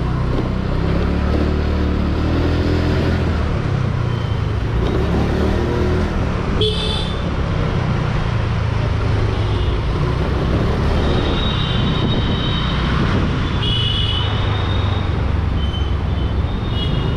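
Steady rumble of a TVS Jupiter scooter riding through road traffic, with vehicle horns tooting several times: briefly about seven seconds in, then again from about eleven seconds on.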